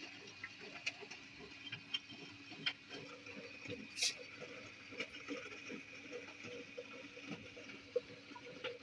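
Miele De-Luxe W423 washing machine running: a steady hum under light pattering and irregular small clicks as it works, with one sharp click about four seconds in.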